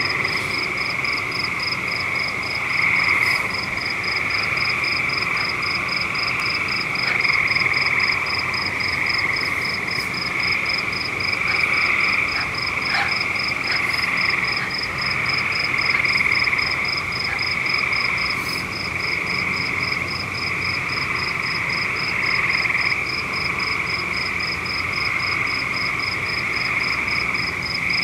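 A steady chorus of calling frogs, with a high, even chirp repeating about two to three times a second over it.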